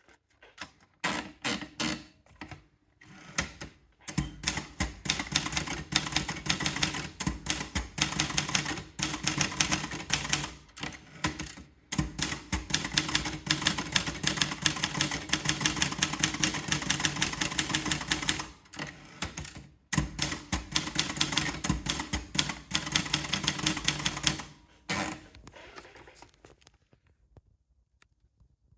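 Erika model 34 manual typewriter being typed on: rapid key strikes, several a second, in runs broken by brief pauses, stopping a few seconds before the end.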